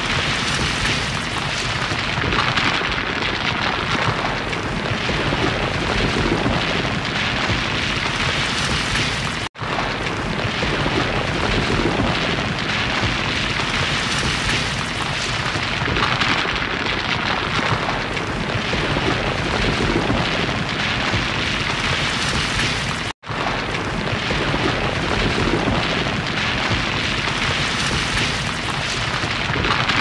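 Rock slide sound effect: a continuous, dense rumbling rush of tumbling rock and debris at a steady level. It drops out for a split second twice.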